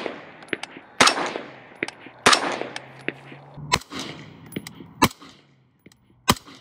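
Suppressed 5.56 short-barrelled rifle firing through a Huxwrx Flow 556K suppressor: five single shots about a second and a quarter apart, each a sharp crack followed by a short fading echo.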